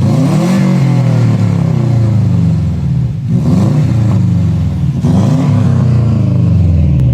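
Straight-piped Subaru Impreza WRX turbocharged flat-four, loud, with its revs rising and falling about three times.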